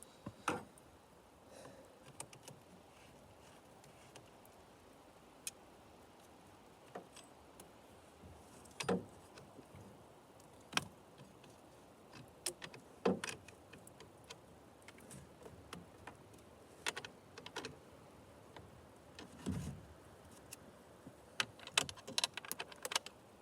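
Scattered metal clicks and knocks of a chainsaw being assembled by hand: bar, chain and clutch cover fitted and the nuts worked with a scrench.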